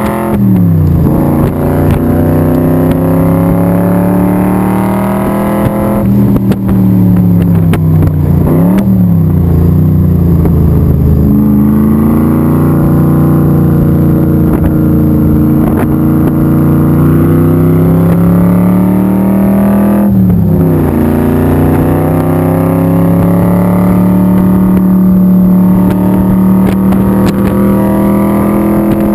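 Supercharged 427 cubic-inch V8 of a Shelby Super Performance Cobra driven hard around a track, heard from the open cockpit. The engine note climbs and falls with the throttle, dropping sharply and picking up again about a second in, near six and nine seconds, and about twenty seconds in, as the driver lifts and changes gear.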